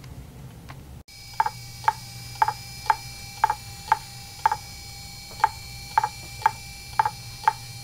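Fujitsu MHK2048AT 2.5-inch hard drive clicking over and over at an even beat, about two clicks a second, over a faint steady whine. The clicks start about a second in.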